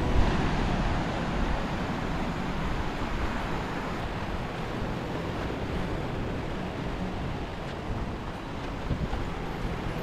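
Steady sea surf washing over a rocky shore, with wind rumbling on the microphone.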